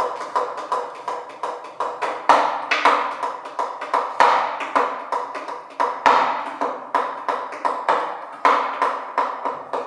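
Solo violin played pizzicato: a quick, uneven run of plucked notes, each with a sharp attack that rings and fades.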